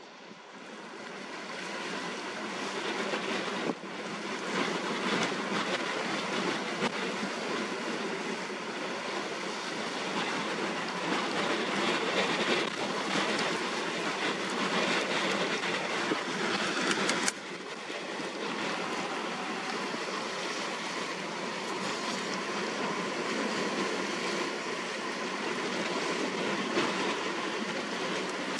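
Strong gusty wind with rough, whitecapped water: a dense rushing noise that rises and falls, with no engine tone heard. It drops abruptly twice, about 4 s and 17 s in.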